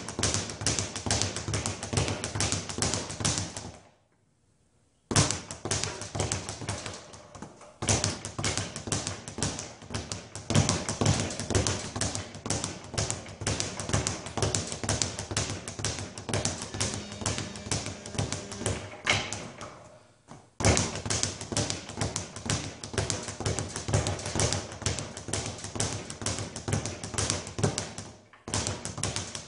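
Speed bag being punched in a fast, even rattle as it rebounds off its platform board, stopping briefly a few times, most clearly for about a second a few seconds in.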